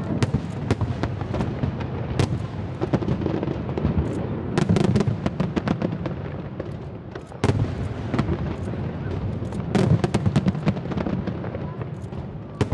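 Fireworks going off: a rapid string of sharp bangs and crackling over a steady low rumble, with heavier volleys about five, seven and a half, and ten seconds in.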